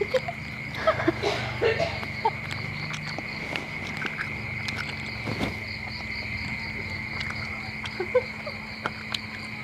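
Crickets chirring loudly at night: a steady high buzz with a faster pulsing trill above it. A few short clicks and knocks come through, mostly in the first two seconds.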